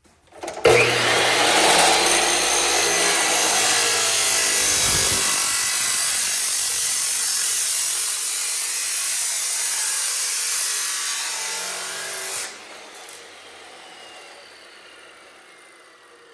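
Bauer abrasive chop saw starting up and cutting through 3-inch mild steel pipe: a loud, harsh grinding of the abrasive wheel on steel for about eleven seconds. The grinding stops abruptly near the end and the motor winds down with a falling whine.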